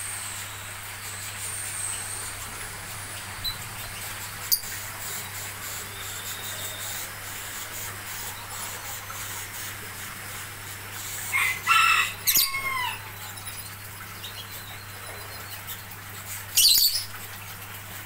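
Lovebirds chirping: a short burst of shrill calls with falling glides about eleven to twelve seconds in and another sharp call near the end, over a steady low hum, with a faint click about four seconds in.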